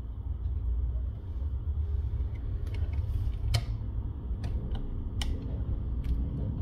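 Metal tweezers clicking and tapping against a smartphone's plastic back cover and frame: a handful of scattered sharp ticks, the sharpest about halfway through, over a steady low background hum.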